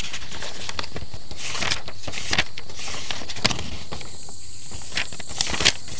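Irregular rustling and crackling as things are rummaged through by hand, searching for a misplaced gift. A steady high-pitched whine joins about halfway through.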